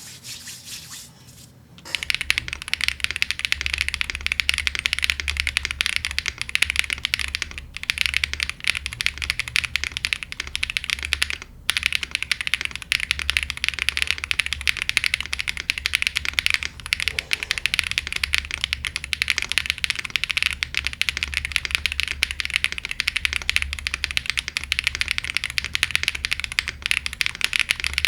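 Fast continuous typing on a gasket-mounted Aero75 mechanical keyboard with an FR4 plate, stock Owlab Neon linear switches and GMK keycaps. Dense keystroke clatter that starts about two seconds in, with two short pauses.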